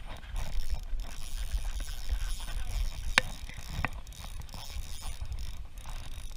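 Nasci 1000 spinning reel being handled and cranked to wind in line, a run of light mechanical clicks with two sharp clicks a little past halfway. A low rumble of wind on the microphone runs underneath.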